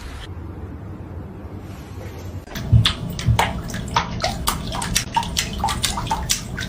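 Water sloshing and splashing, as in a filled tub or basin: a steady low rumble at first, then from about two and a half seconds in a run of irregular short splashes and clicks with two low thumps.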